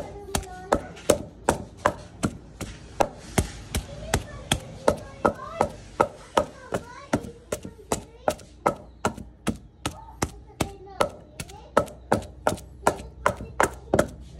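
Wooden pestle pounding banana and shredded young coconut in a wooden mortar, a steady rhythm of strokes about three a second.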